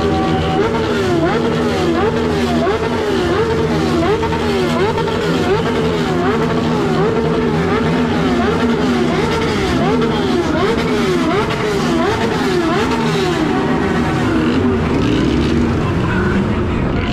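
Motorcycle engines running in a convoy, with a pitched wail that rises and falls evenly about one and a half times a second, dying away near the end.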